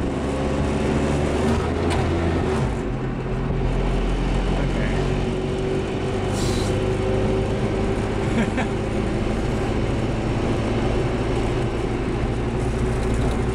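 Piaggio Vespacar P2's two-stroke single-cylinder engine running as the three-wheeler drives along, heard from inside the cab, its note shifting about two and a half seconds in. The carburettor is suspected of a new air leak that leaves the throttle very sensitive.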